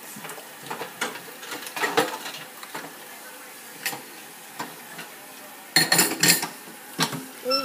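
Kitchen tap running water into a drinking glass, with scattered clinks and knocks of the glass against the sink and dishes; a louder clatter comes about six seconds in.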